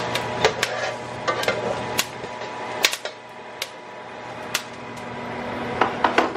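Jalapeños sizzling in a hot skillet, with irregular sharp pops and crackles, over the steady hum of a running kitchen fan.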